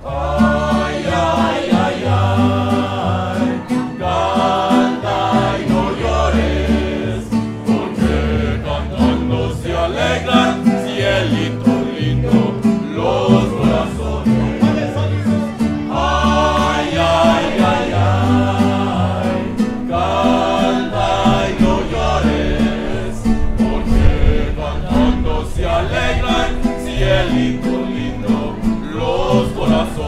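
Mariachi band playing live: violins, trumpet, guitars and a guitarrón bass line, with the band singing together over the instruments. The music starts right at the beginning.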